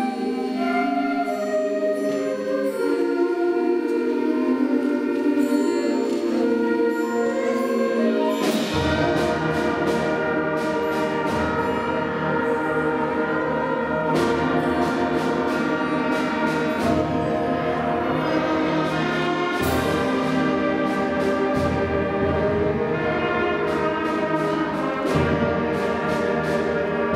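Middle-school concert band playing a slow ballad. Only the higher parts play at first; about nine seconds in, the low instruments come in and the band plays fuller, with struck hits now and then.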